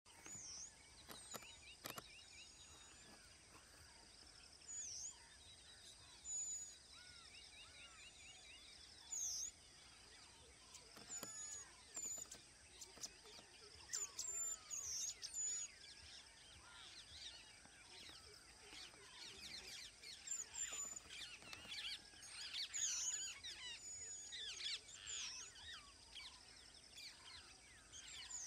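Birds chirping and calling, many short chirps and whistled notes, busier in the second half, over a steady high-pitched whine and faint outdoor hiss.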